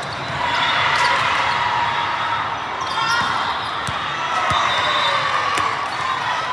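Indoor volleyball rally: athletic shoes squeaking on the court again and again, and the ball struck with several sharp hits.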